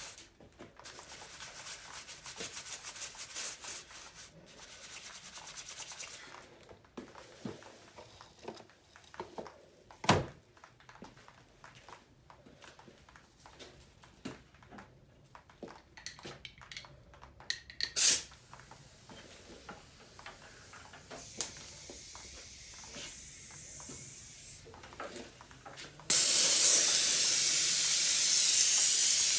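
A stiff nylon brush scrubbing the cast-iron Chevy small block 350 engine block in rapid strokes, then quieter handling with a couple of sharp knocks. Near the end an air-powered engine cleaning gun starts spraying with a loud steady hiss.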